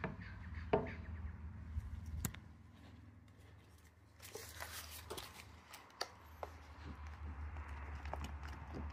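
Scattered light clicks and a brief rustle from handling a clear plastic resin cup against a timber slab, over a low steady hum.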